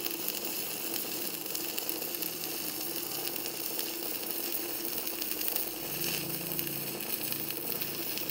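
Stick welding with an Arc200 arc welder: a 2.6 mm electrode burning at about 90 amps, making a steady crackling sizzle.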